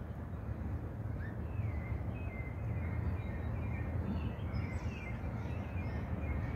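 Small birds chirping in short, quick falling notes, more of them in the second half, over a steady low rumble.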